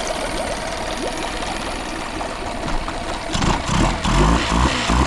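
Small outboard motor running with its cowling off: it idles steadily, then from about three seconds in is revved up and down several times on the tiller throttle, picking up each time without hesitation.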